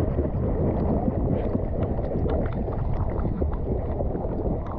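Seawater sloshing and splashing right at the microphone, the camera riding at the surface while a swimmer kicks across, pushing a board, with a steady stream of small splashes.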